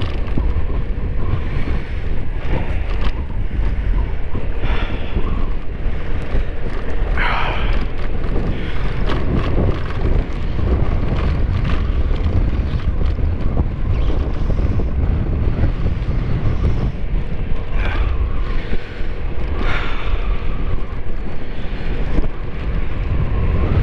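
Wind rushing over the rider's microphone while riding a scooter, with the engine running steadily underneath as a low rumble.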